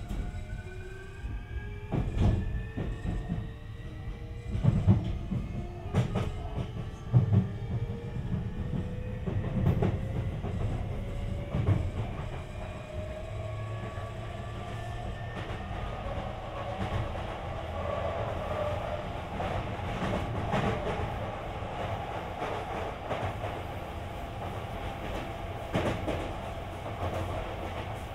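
Sotetsu 20000 series electric train's Hitachi SiC-VVVF inverter and traction motors whining in several tones that rise in pitch as the train accelerates, then level off into steady running. Wheels click over rail joints a few times in the first half, over a low rolling rumble, heard inside the car.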